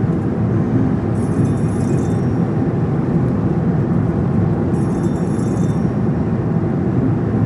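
A car driving at a steady speed, its road and engine noise a constant low rumble.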